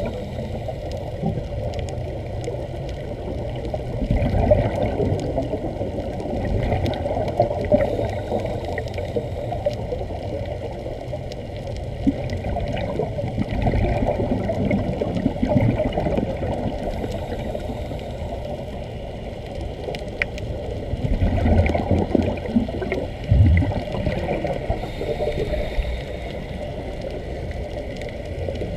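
Muffled underwater rumble and bubbling from air streaming out of Sea Trek diving helmets fed by a surface air hose, heard with the camera underwater. A few faint clicks are scattered through it.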